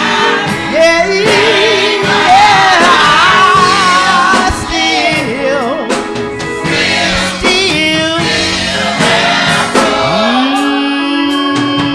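Gospel song: a lead singer carries long, ornamented runs over sustained organ or keyboard chords, with a choir behind.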